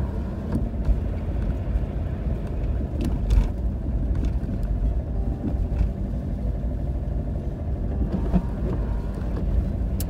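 A car driving, a steady low rumble of engine and tyres, with a few light knocks, the clearest about three seconds in.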